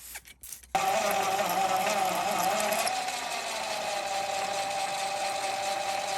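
A few clicks, then a mini lathe's motor switches on about a second in and runs with a steady whine, dipping slightly in pitch and loudness about three seconds in before holding steady.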